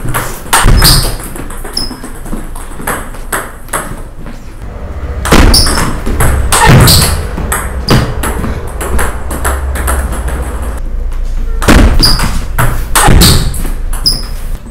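Table tennis rally: the celluloid-plastic ball cracking off rubber-faced paddles and bouncing on the table in quick, irregular clicks, each with a short ringing ping, with a few louder hits among them.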